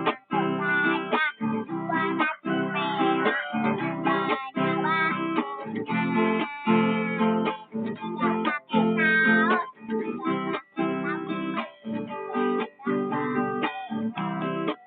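Acoustic guitar strummed in a steady rhythm, chord after chord, with brief breaks between phrases.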